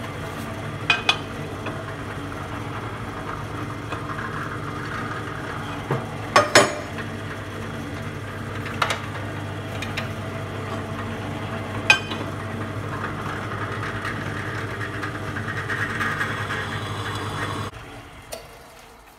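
Pillar drill running, drilling out a broken bolt in an engine mount bracket with a small bit, with a few sharp metallic knocks and a rising cutting hiss as the bit bites. The motor switches off shortly before the end.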